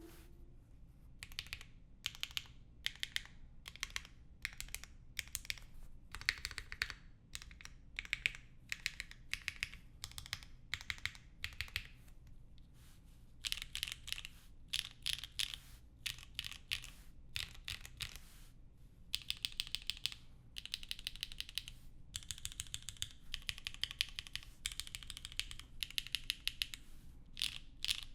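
Typing on a Geass60 Revival 60% mechanical keyboard with Gateron Slay switches, a polycarbonate plate, 90A gaskets and GMK Hyperfuse keycaps: quick runs of keystrokes with short pauses between bursts.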